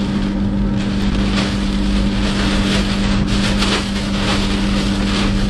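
Inside a vehicle's cabin in hurricane rain: wind-driven rain hissing and lashing against the car, over a steady low engine hum.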